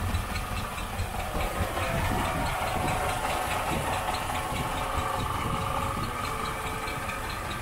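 Boat engine idling, a steady low rumble with hiss.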